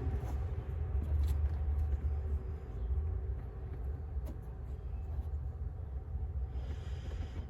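A low, steady mechanical hum with a few faint tones above it, softening after about two and a half seconds, with a few faint clicks.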